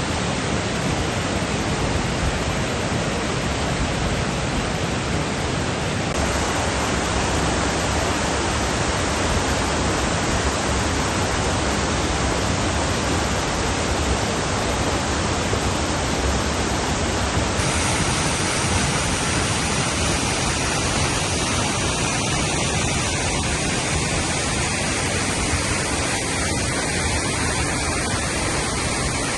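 Waterfall: a loud, steady rush of falling water, its tone shifting slightly about six seconds in and again near eighteen seconds.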